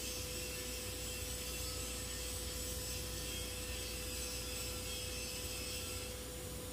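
Argon TIG welding arc burning steadily as a bead is run on a pipe flange joint: an even hiss and buzz with a thin constant tone, easing slightly near the end.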